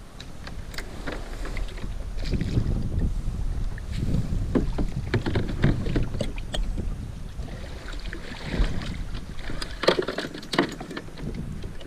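Plastic sit-on-top kayak being beached and handled in shallow water: the hull scraping and knocking, gear and paddle clattering on the deck, and water splashing around it, with many sharp knocks and clicks through it.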